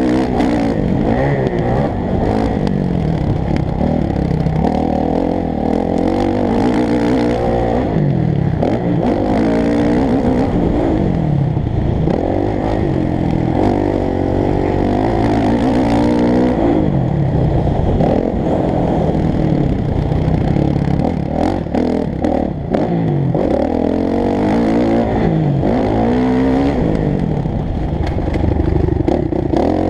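Motocross bike engine at full race effort, heard from the rider's helmet camera, revving up and dropping back over and over as he accelerates, shifts and brakes for turns and jumps.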